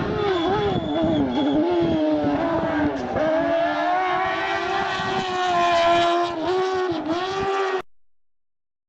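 Rally car engine at full racing effort, revving up and down repeatedly through the bends. The sound cuts off suddenly about a second before the end.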